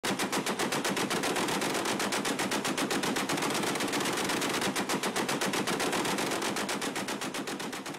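M45 quadmount's four .50 calibre M2 Browning heavy machine guns firing a long continuous burst, a rapid, even stream of shots that grows fainter near the end.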